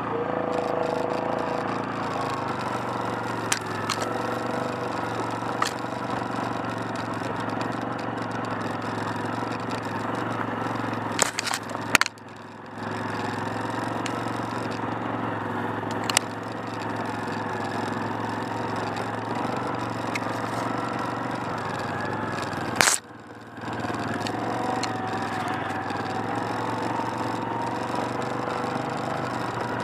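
ATV engine running steadily while riding, with several sharp knocks. The engine drops off briefly twice, about twelve and twenty-three seconds in, then picks up again, and its pitch climbs slowly near the end.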